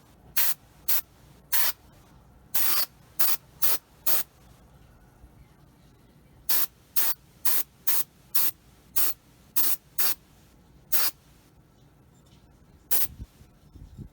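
Airbrush spraying primer in short hissing bursts, about one or two a second, in two runs with a pause of about two seconds in the middle and a last few bursts near the end.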